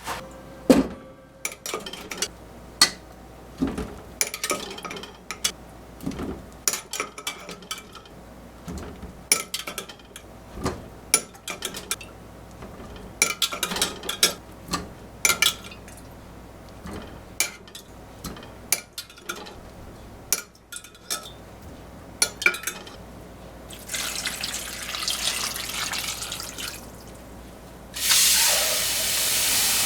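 Kitchen sounds: a string of clinks and knocks of dishes and glassware being handled, then a tap running water, for about three seconds and then again, louder, near the end.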